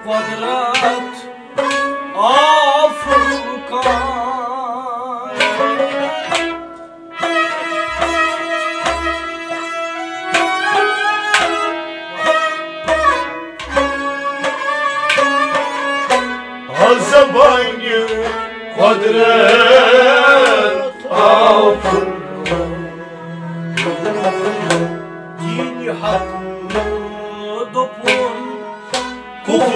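A Kashmiri Sufi music ensemble plays a devotional song. Sustained, wavering melodic lines from the instruments, and perhaps voices, run over a steady beat of low drum strokes that fall mostly in pairs.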